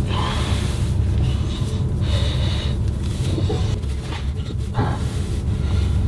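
Steady low engine-like rumble heard inside a truck cab, with clothing rustling as thermal long underwear is pulled on over the legs.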